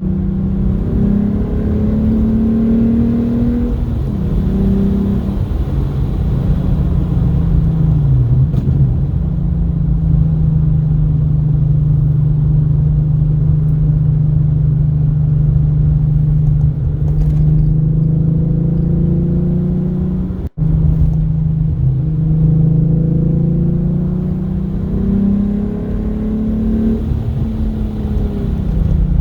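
Straight-piped VR6 narrow-angle V6 in a MK3 Jetta, exhaust running loud with a deep drone. The pitch holds steady for long stretches and rises and falls as the revs change. The sound cuts out for an instant about two-thirds of the way through.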